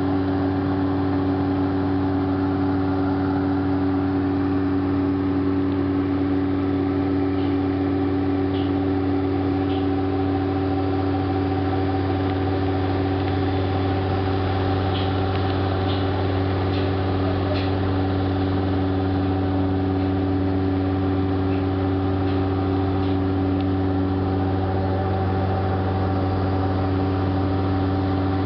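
An engine running steadily at constant speed, giving an even hum that holds the same pitch throughout. A few faint high ticks come in the middle.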